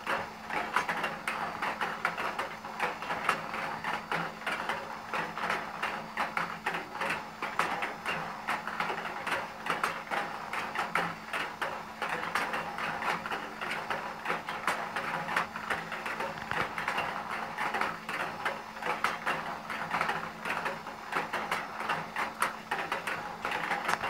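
Meccano ball-rolling machine running: table tennis balls clank and rattle down its metal ramps and rails in a continuous stream of quick light clicks and knocks, over a steady low hum.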